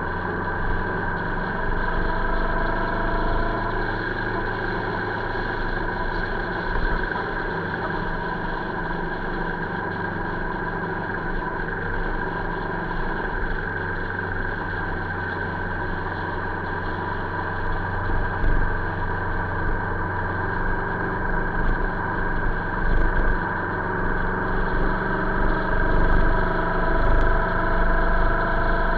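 Motorcycle engine running steadily at cruising speed, with its note shifting only slightly, over wind and road noise. In the second half, uneven bumps of wind buffet the microphone.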